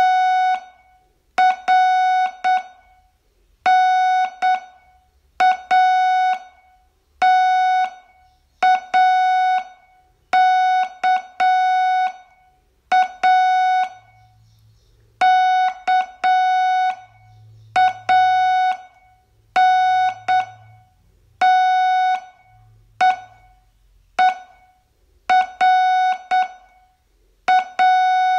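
Morse code sent as a single steady beep tone, keyed in short and long beeps grouped into letters, with a longer pause about halfway. It is slow Morse for a copying test, spelling out plain words letter by letter.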